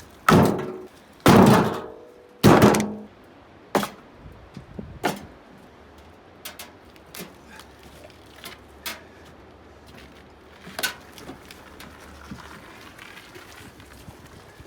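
Split firewood pieces being dropped and stacked: three heavy wooden thunks in the first few seconds, then two lighter knocks and a string of faint clicks as pieces are set in place.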